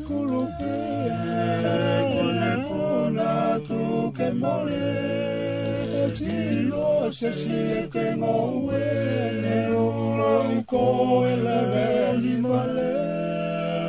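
Tongan hiva kakala song sung unaccompanied by a small group of men in several vocal parts, the fasi melody moving over lower parts that include the laulalo bass. The voices hold long chords, with the lowest part sustaining steady low notes.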